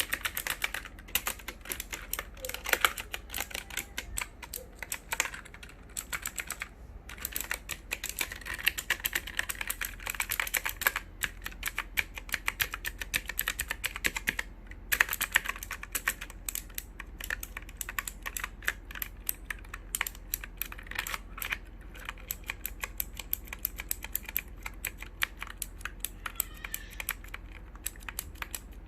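Typing on a computer keyboard: rapid, irregular key clicks in quick runs, with a few short pauses.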